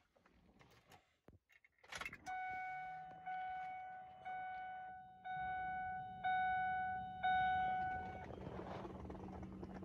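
Ignition key clicked on in a 2001 Ford F-350, then the dashboard warning chime dings six times, about once a second. A low steady hum starts about halfway through and keeps going after the chimes stop.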